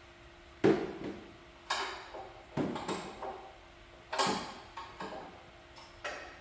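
Metal clanks of a wrench being fitted to and worked on an oil pan drain plug: about seven sharp knocks at uneven intervals, each ringing briefly.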